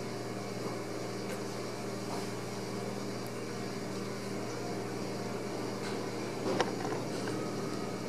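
Steady hum of a running kitchen refrigerator, with a few faint clicks and one sharper knock about six and a half seconds in as a jandaya parakeet's beak works at slices of orange on the refrigerator top.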